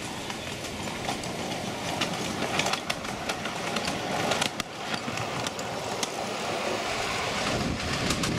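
Miniature ride-on live steam locomotive running past on garden railway track, its wheels clicking irregularly over the rail joints.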